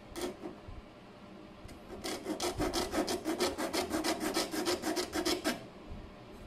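Hand file rasping back and forth across the edge of a thin gauge plate, cutting a notch to widen a bolt opening. A couple of short strokes at first, then about three and a half seconds of quick, even strokes, some seven a second, stopping about a second before the end.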